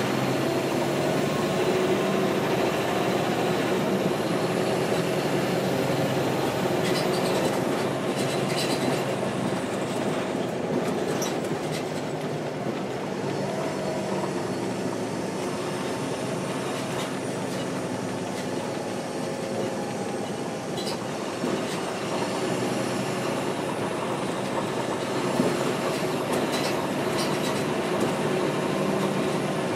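Caterpillar C13 diesel engine of a NABI 416.15 transit bus running while the bus is under way: a steady drone with scattered short clicks and rattles.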